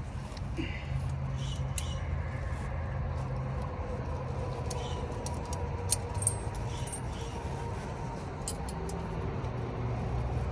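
Steel tire chain links clinking in scattered light clicks as a chain is worked by hand onto a big rig's dual tire, over a steady low hum.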